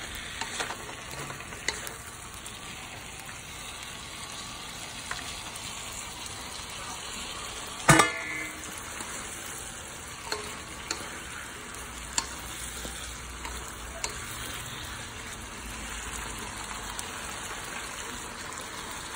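Chinese cabbage stems and tomato sizzling in oil in a wok, stirred with a wooden spatula, with scattered light clicks. About eight seconds in comes one sharp knock with a short ring, the loudest sound here.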